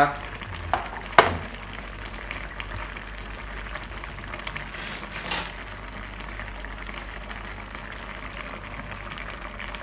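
Stingray and coconut-milk stew simmering in a wok, a steady low bubbling hiss, with a sharp click about a second in and a brief scrape a little past five seconds.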